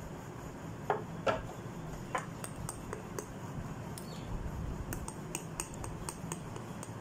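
Metal spoon stirring a thick banana-and-yogurt mixture in a ceramic bowl, with irregular light clinks and scrapes as it touches the bowl.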